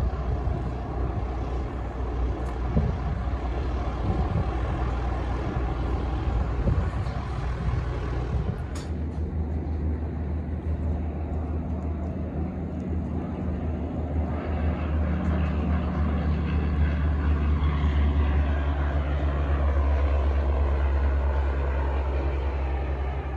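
Van's RV-12 light aircraft's Rotax 912 four-cylinder engine and propeller at takeoff power through the takeoff roll and climb-out. A steady drone that grows louder about two-thirds of the way through as the plane passes.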